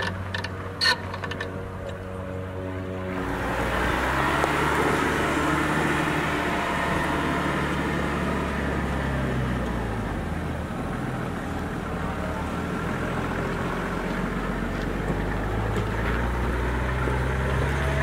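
Sierra pickup's Duramax turbo-diesel engine running at low revs under load, its pitch stepping up and down a few times, while the tyres crunch over dirt and rocks. A few sharp clicks sound in the first second. The sound gets louder about 3 seconds in.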